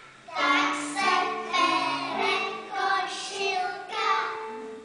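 A group of young children singing a Czech song together, with electronic keyboard accompaniment.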